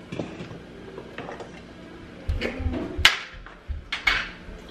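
Handling knocks and clicks as a small jar is picked up and its lid opened: a few soft knocks, then a sharp click about three seconds in and two more clicks near the end.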